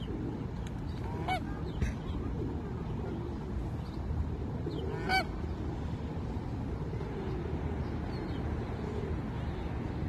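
Canada geese honking: a couple of short honks about a second in and again about five seconds in, over a steady low background rumble.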